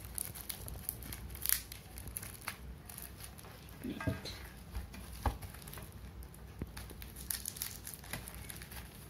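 Paper-and-plastic wrapping crinkling and rustling as a packet is unwrapped by hand, with scattered crackles. Two light knocks sound about four and five seconds in.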